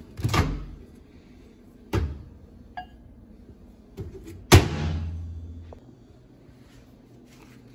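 Several knocks and thuds of things being handled. The loudest comes about four and a half seconds in and is followed by a short low ringing.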